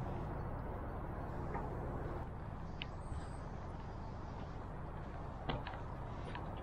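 Steady low outdoor rumble, with a few short sharp clicks about three seconds in and twice near the end.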